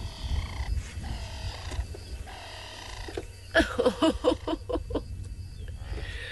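Lion cubs calling: a few drawn-out mewing calls, then a quick run of short, louder calls starting about three and a half seconds in.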